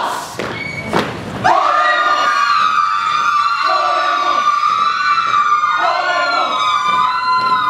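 A chorus of many voices holding one long, high, wavering wail, with lower voices joining in and dropping out, after two sharp stamps or knocks near the start.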